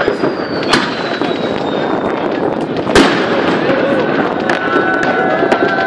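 New Year's Eve fireworks: sharp bangs of bursting shells and firecrackers over a dense crackle of many more further off, the loudest bang about three seconds in. A whistle falls slowly in pitch near the start, and a steady high tone of several notes joins from about four and a half seconds in.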